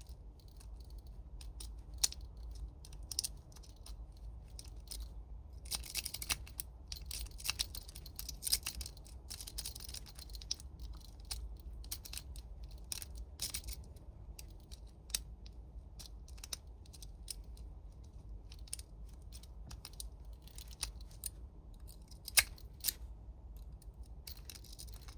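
Twin peak lock pick scraping and clicking against the pins in the keyway of a Burg Wachter Splash laminated padlock, under tension, without the lock opening. The scratchy clicking is busiest from about six to fourteen seconds in, with a few sharper clicks later, over a low steady hum.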